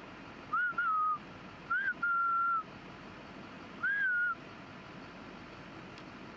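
A person whistling at a blacktail deer to get its attention: short, high mouth whistles in three groups over about four seconds, each note bending up and then settling, the longest held for about half a second.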